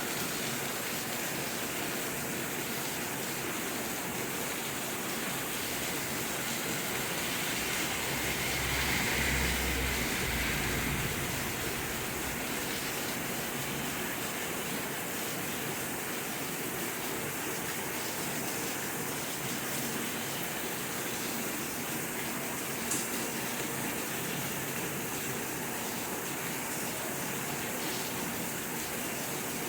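Steady rain falling, an even hiss at a constant level. A low rumble swells and fades between about 8 and 11 seconds in, and a single sharp tick comes a little over 20 seconds in.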